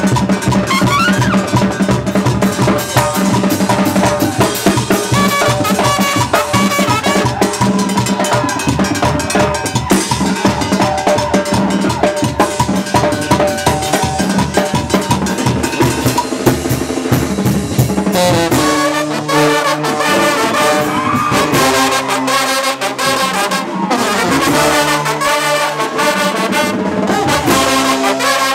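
Brass banda music: sousaphones, trumpets and trombones playing over a drum kit and cymbals with a steady beat. About 18 seconds in, the drumming and deep bass drop back, and the trumpets and trombones play held chords.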